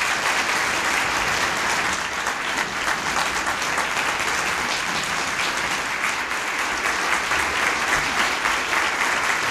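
Large audience applauding: dense, steady clapping from a roomful of people, loud and sustained.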